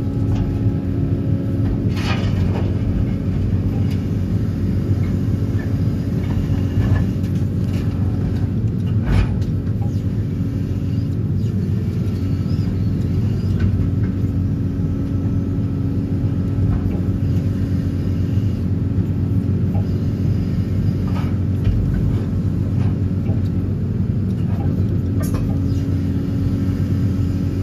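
DPD350T excavator-mounted vibro hammer running steadily while driving a steel sheet pile: a loud, continuous low rumble with a steady hum that drops out briefly a couple of times, and a few faint knocks.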